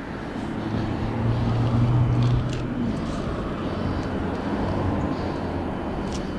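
A low, steady engine drone that swells about two seconds in and then eases off, with a few faint ticks.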